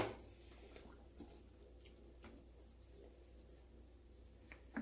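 Quiet kitchen handling: a short knock at the start, then a few soft scattered clicks and taps over a low steady hum, with another small knock near the end.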